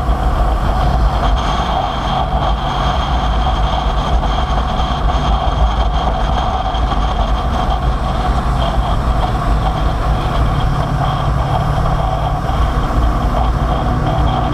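Motorcycle on the move: engine running steadily at an even speed, under a heavy rumble of wind and road noise.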